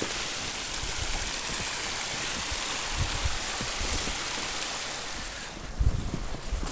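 Small mountain stream running steadily among snow-covered rocks, a continuous rushing hiss that eases a little near the end. A few low thumps are heard, the loudest about six seconds in.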